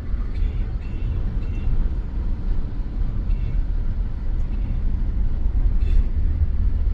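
Steady low rumble inside a Tesla's cabin as it drives through deep floodwater.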